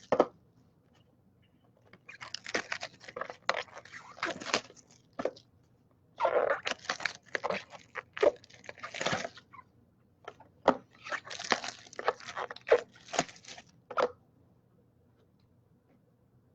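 Plastic trading-card pack wrapping being torn open and crinkled by hand, in three crackling bursts of a few seconds each, starting about two, six and ten and a half seconds in.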